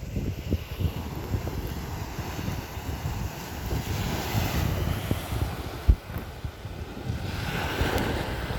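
Wind buffeting the microphone, with sea waves washing onto the beach, swelling about four seconds in and again near the end. A single brief thump comes about six seconds in.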